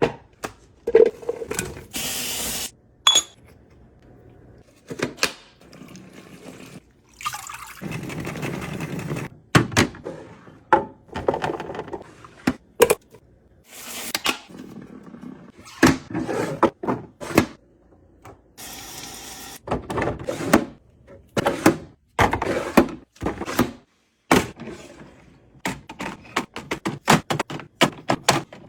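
Kitchen containers, jars and lids handled and set down, a long string of knocks, clicks and clinks, with a few stretches of a second or two of running or pouring water.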